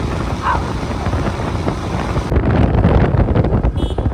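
Loud, steady rumbling noise with wind buffeting the microphone. It grows heavier and more muffled a little past halfway.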